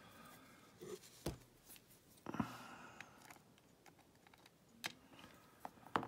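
Faint, scattered small metal clicks and taps as the pins and wafers of an Abus oval padlock's plug are worked out and handled over a parts tray; a few sharp clicks, the sharpest about two and a half seconds in.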